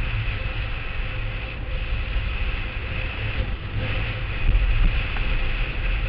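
A blokart land yacht rolling fast over a hard dry lakebed: wind rushing and buffeting over the microphone with the rumble of the wheels and a faint steady whine. The buffeting grows louder about two thirds of the way through.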